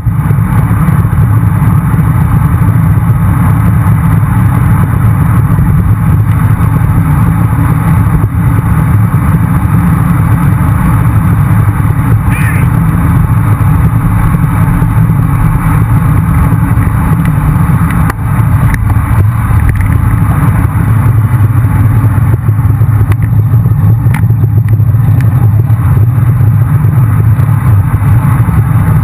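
Steady, loud rumble of wind buffeting the microphone of a camera on a moving bicycle, with the sound of car traffic on the road.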